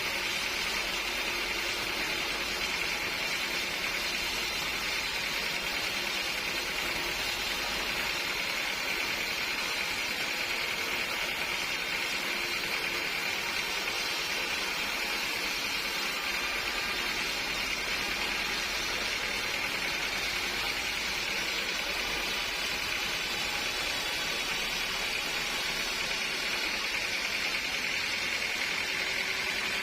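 Sawmill machinery running steadily, an even mechanical hiss and hum with no change in pitch or level.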